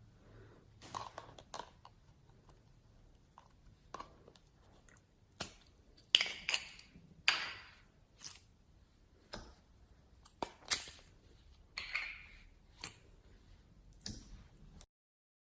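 Slime being squeezed and stretched by hand, giving irregular sticky clicks and crackly pops, some sharp and loud, that stop abruptly near the end.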